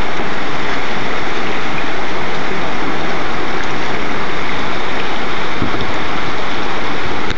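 Loud, steady rush of whitewater in a river rapid.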